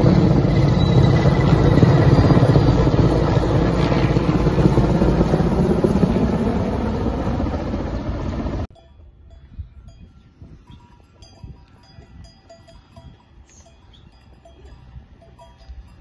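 Loud, steady rotor and engine noise of a heavy helicopter, cutting off abruptly about nine seconds in. After that it is much quieter, with faint scattered clinks of cowbells from cattle.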